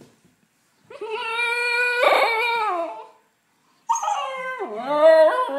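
Husky pup crying in long howls to be let into the house. One drawn-out howl holds steady and then falls away. After a short pause a second, wavering howl dips and rises in pitch.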